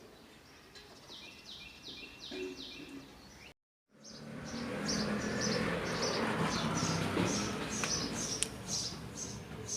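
Small birds chirping in quick series of short, high notes. About three and a half seconds in the sound cuts out briefly, then returns louder with a steady hiss of outdoor noise under continued rapid chirping.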